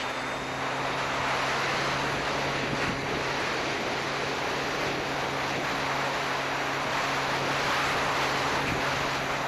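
Heavy wind rush over a camera on board a Radian Pro RC electric glider in flight, with a steady low hum from its motor and propeller underneath.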